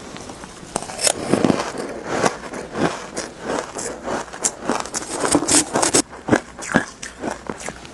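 Close-miked crunching and chewing of powdery shaved ice: many irregular crisp crunches and scrapes.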